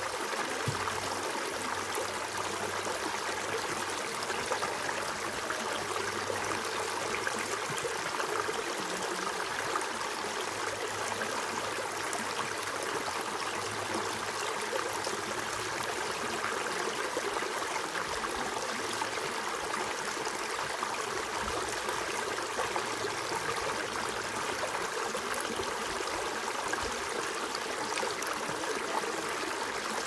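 Shallow rocky stream running over and between stones in a small cascade, a steady, even water sound with no breaks.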